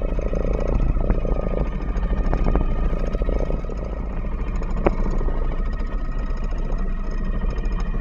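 Sailboat's inboard engine running steadily while motoring, with a few light knocks.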